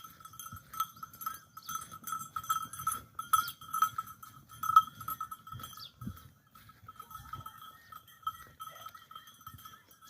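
Bells worn by goats ringing, struck irregularly over and over, louder in the first half.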